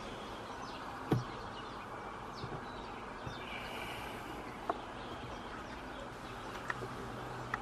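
Outdoor ambience: birds chirping over a steady background hum. A single sharp knock comes about a second in, followed by a few fainter clicks later.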